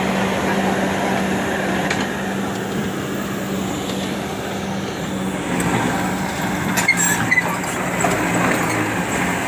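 Excavator's diesel engine running steadily at a constant speed, a low even hum with no revving.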